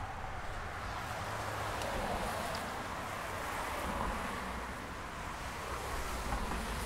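Winter street ambience: steady wind noise on the microphone over a low rumble of car traffic.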